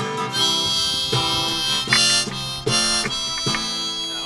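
Background music: a harmonica playing sustained notes over a plucked guitar.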